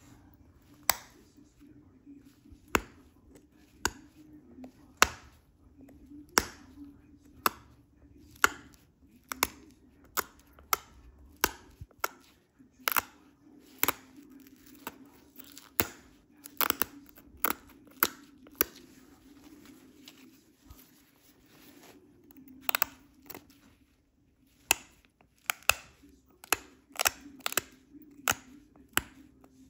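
Sharp clicks of flakes popping off heat-treated Flint River chert under pressure flaking, coming irregularly at about one a second, some in quick pairs, with a short lull a little after twenty seconds in.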